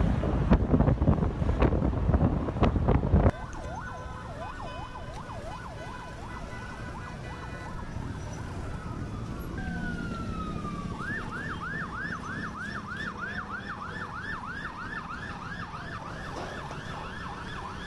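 A loud, noisy stretch with sharp cracks cuts off about three seconds in, followed by emergency vehicle sirens: first a slow wail, then from the middle on a fast repeating yelp, about three cycles a second.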